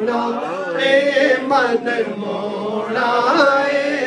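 A man singing devotional verse solo into a microphone, in the style of a naat recitation, with long, drawn-out notes that waver and glide in pitch.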